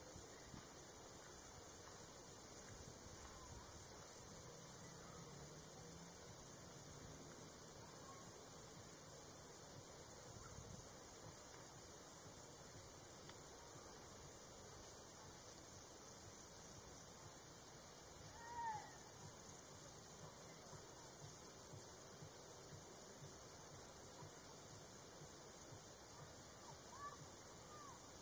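A dense, steady chorus of crickets chirping high in the grass, with a few faint bird chirps about two-thirds of the way through and again near the end.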